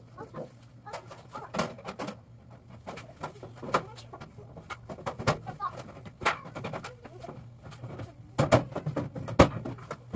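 Galvanized sheet-metal panels of a furnace filter box being handled and fitted together by hand: irregular clanks, knocks and flexing wobbles of thin metal, the sharpest knocks near the end, over a low steady hum.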